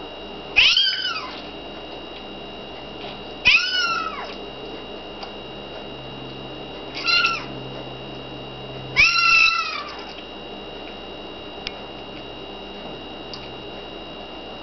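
Premature kitten mewing four times: short, high, thin cries, each rising and then falling in pitch.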